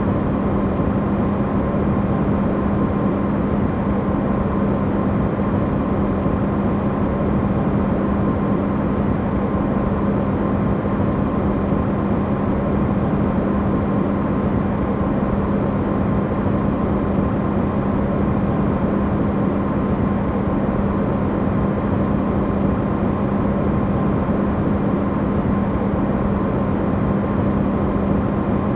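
Amplified recording of an Electrolux refrigerator running: a steady, unchanging hum under an even rushing noise, with no clicks or changes.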